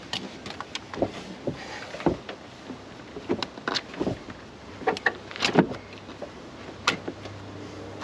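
Irregular metallic clicks and clinks of a steel-band oil filter wrench being fitted and shifted around the oil filter in the engine bay. The wrench is not seating on the filter, and the knocks are louder and closer together toward the middle.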